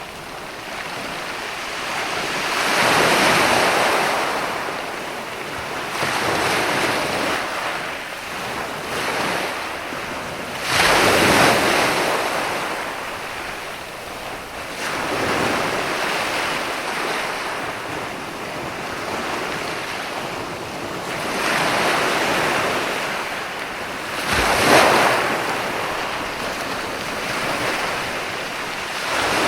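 Ocean waves breaking and washing on the shore, swelling and receding every few seconds, with a sharper crash about eleven seconds in and another near the end. Wind noise runs underneath.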